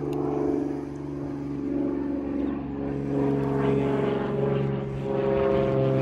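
Engine drone: a low, steady hum with several overtones, growing louder toward the end.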